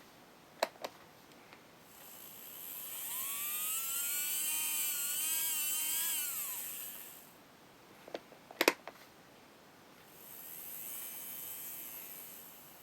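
Small electric motor of an N-gauge model train motor car running on the track: a high whine rises in pitch as it speeds up, wavers, then drops away as it slows. A fainter second run comes near the end. A few sharp clicks come near the start and about eight seconds in.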